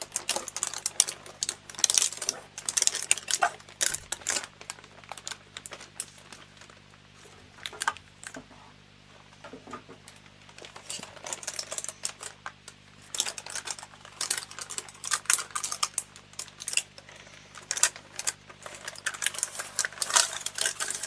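Motherboard packaging being handled: dense, irregular clicks and crinkles of plastic and cardboard as the board is taken out, with a quieter stretch in the middle.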